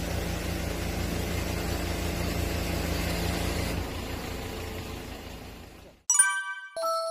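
Engine of a truck-mounted aerial work platform running steadily while it drives the boom's hydraulics; it fades out a few seconds in. After a moment of silence a short, bright electronic chime sounds near the end: several quick ringing tones, then a held note.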